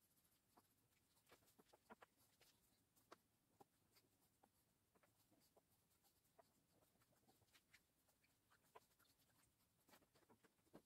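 Very faint scratching and tapping of a pen on a stack of paper as a child draws, in small irregular clicks.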